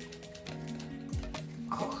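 Background music with held notes and a low beat that drops in pitch about a second in.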